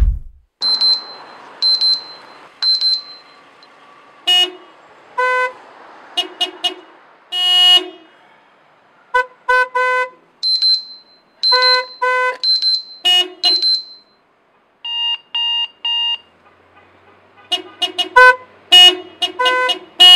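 An electronic alarm beeping three times, about a second apart, then a long run of short car horn honks, several horns of different pitches sounding in overlapping clusters, with a brief pause about two-thirds of the way through.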